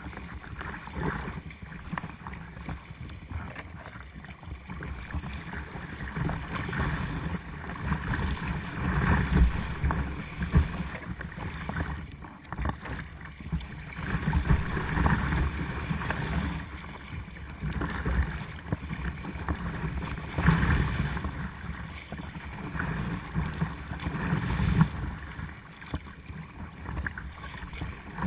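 Choppy sea splashing and washing over the bow of a sea kayak, with wind buffeting the microphone. The rush of water surges louder every few seconds as waves break over the deck.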